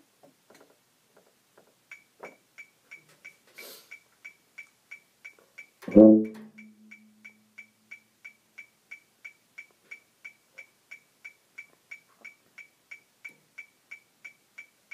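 A metronome-like click track ticking steadily, nearly three clicks a second, starting about two seconds in. About six seconds in, a single low plucked string note sounds loudly over it and rings out for about a second.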